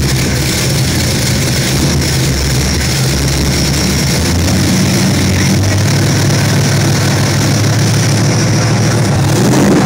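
Car engine with a brand-new camshaft, on break-in oil, running steadily just after being started.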